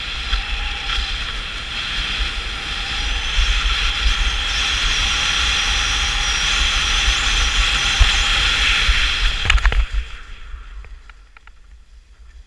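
Skis hissing over packed snow at speed, with wind buffeting the microphone as a low rumble. About ten seconds in the noise drops off sharply as the skis reach softer snow.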